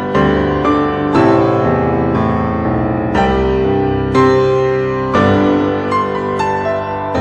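Background piano music: slow chords struck about every one to two seconds, each ringing and fading before the next.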